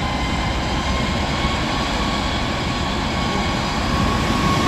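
Twin-section 2TE116 diesel locomotive passing close by under load, its V16 diesel engines running hard with a steady high whine over the low engine noise, slowly getting louder.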